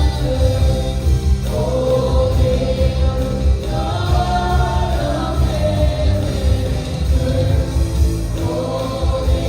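Live Christian worship music: a group of singers holding long sung lines over a band with a strong, pulsing bass.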